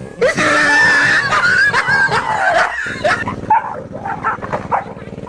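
A dog barking and yelping at a stuffed toy tiger. About three seconds in the sound changes to shorter, separate barks over a steady low drone.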